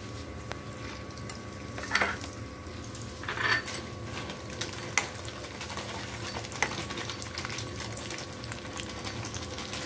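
Cashews frying in hot oil in a kadai: a steady sizzle, with a few clinks and scrapes of a slotted spoon stirring them against the pan.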